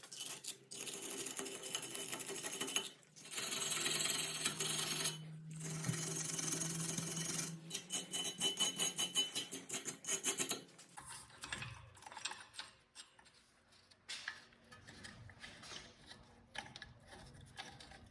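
Scrubbing and scraping the brake caliper carrier's pad sliding surfaces clean: a harsh rasping with brief pauses that turns into quick, even strokes, several a second, and stops about eleven seconds in. After that only light taps and clicks of handling parts.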